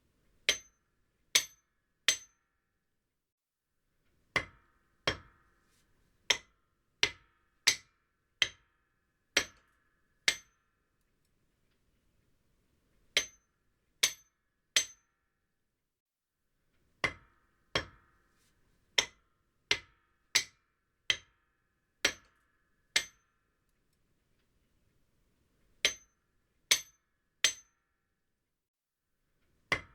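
A hammer striking cement in sharp, ringing blows, in groups: three quick strikes, a pause, then a run of about ten steady strikes, the pattern repeating with silent gaps between.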